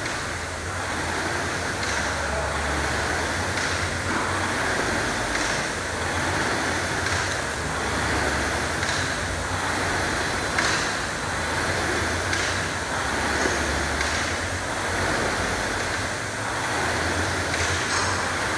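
Air-resistance rowing machine's fan flywheel whooshing under a fast, hard pull, the rush surging once with each stroke, about every second and a half to two seconds.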